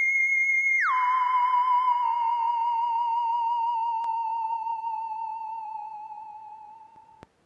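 A wavering electronic tone, like a whistle, held high at first, then dropping suddenly by about an octave about a second in. It then slides slowly lower and fades before cutting off near the end.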